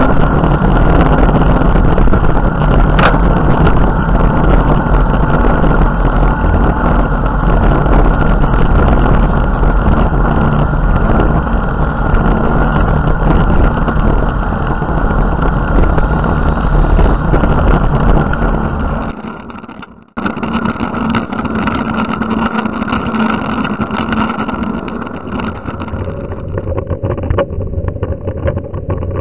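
Wind buffeting the microphone of a bicycle-mounted camera, with road noise, as the bike rolls along a road. About two-thirds of the way through, the sound fades, cuts out for a moment, and comes back quieter and duller.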